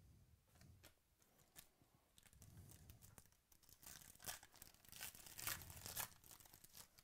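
Plastic wrapper of a trading-card pack being torn open and crinkled by hand, faint, with a run of crackles that is loudest about four to six seconds in. A few light clicks of cards being handled come before it.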